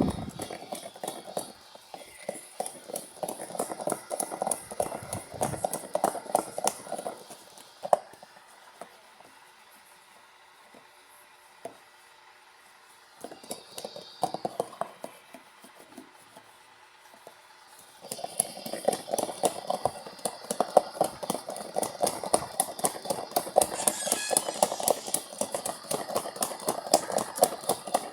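LG washing machine working through a heavy-load wash: spells of rapid clattering and knocking as the drum turns the load, quieter in the middle, then steady clattering again from about two-thirds of the way through.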